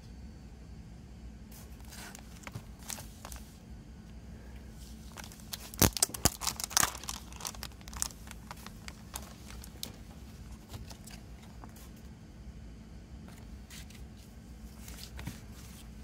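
Clear plastic shrink wrap being torn open and peeled off a CD case: a burst of sharp tearing and crinkling about six seconds in, then scattered crinkles as the wrap is pulled away.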